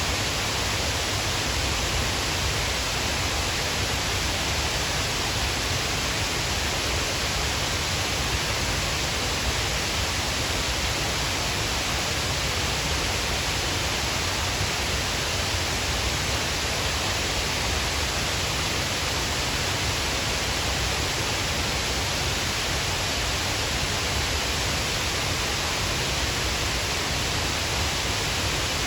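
Shiraito Falls, a broad curtain of many thin cascades, pouring steadily: an even, unbroken rush of falling water, strongest in its hiss.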